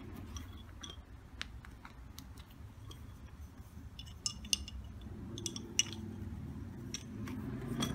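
Wooden lace bobbins clicking against one another as they are handled and crossed while making bobbin lace: scattered sharp clicks with a short ring, coming in small clusters.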